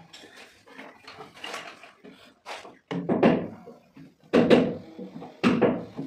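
White wooden cabinet boxes being handled and set against each other on the floor: a series of knocks, thuds and short scrapes, louder in the second half.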